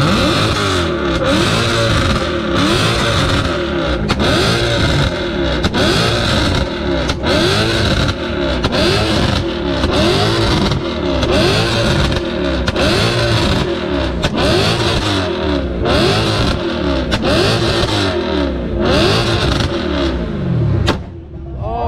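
Car engine revved hard and repeatedly through a loud exhaust, its pitch sweeping up and falling back about twice a second without letting up, then briefly dropping away near the end.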